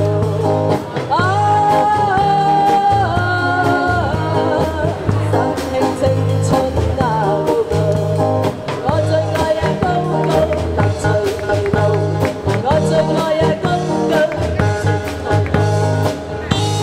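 A woman singing a pop song into a microphone over amplified live band music, with electric guitar and a steady, pulsing bass beat played through PA speakers.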